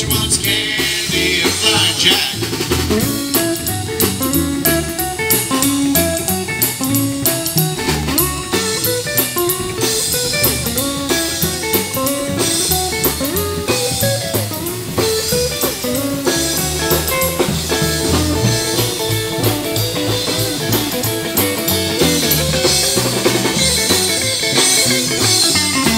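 Live rockabilly band playing an instrumental break: guitar picking notes over a steady drum-kit beat, with bass.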